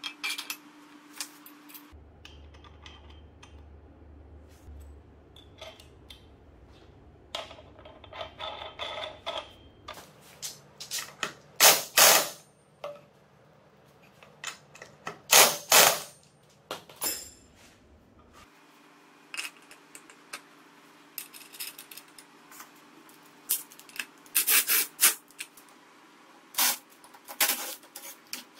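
Workshop sounds of metal parts and tools clinking and knocking while a scooter's front fork and hub-motor wheel are assembled, with a few short loud bursts of a cordless impact wrench tightening the axle nut.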